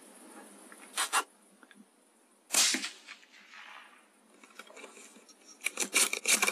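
A single shot from a bolt-action .17 HMR rifle (Bergara BMR) about two and a half seconds in, with a short trailing echo. There are two clicks about a second in, and a quick run of clicks near the end as the bolt is worked.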